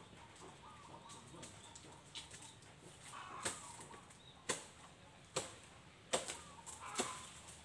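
A string of sharp knocks, about one a second, starting about halfway in, over faint background sound.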